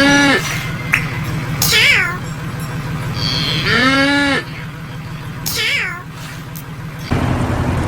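Domestic cat meow sound effect, played twice about four seconds apart, each meow falling in pitch. A low steady hum runs underneath and cuts off near the end.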